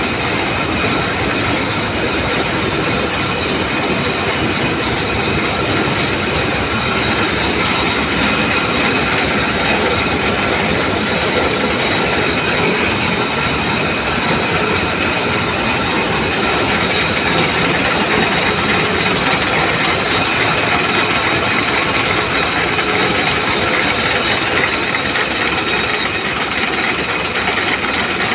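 Karl Mayer warp knitting machine running at speed as it knits net fabric: a loud, steady, fast mechanical clatter.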